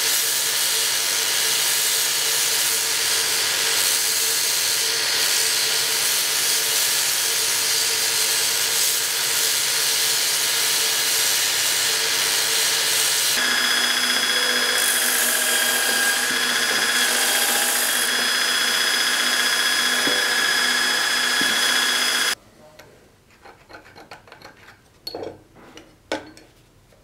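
Belt grinder running steadily while steel is ground against the abrasive belt, throwing sparks. About 13 seconds in the sound changes to a second abrasive belt on a contact wheel grinding a small steel part clamped on a magnetic table, with a steady high whine. It cuts off suddenly about 22 seconds in, leaving a few light clicks of small metal parts being handled.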